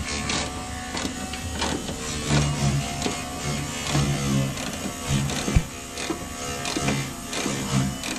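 A power tool running in short bursts of about half a second, with many sharp metallic clicks and knocks in between, as fasteners are worked loose from an old truck's cowl panels.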